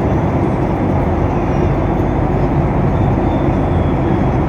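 Airliner cabin noise: a steady low roar of the engines and rushing air, unchanging throughout.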